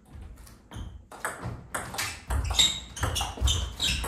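Table tennis rally: the ball clicking sharply off bats and table in quick succession, some hits with a short high ping. Low thuds from the players' footwork on the floor run underneath, heaviest in the second half.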